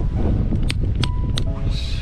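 Background music with held notes and a light ticking beat, over a steady low rumble.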